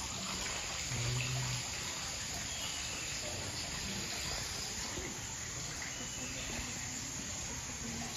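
Steady hiss of trickling water, with a brief low hum about a second in.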